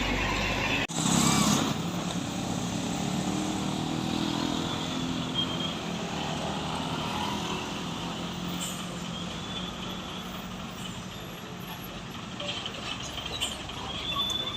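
Heavy truck's diesel engine running steadily and slowly fading as it passes, with a short loud hiss about a second in.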